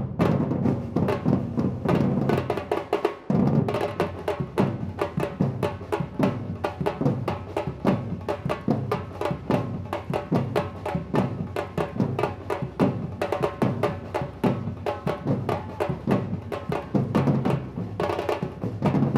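Drum ensemble playing a fast, dense, driving rhythm, with a short break about three seconds in.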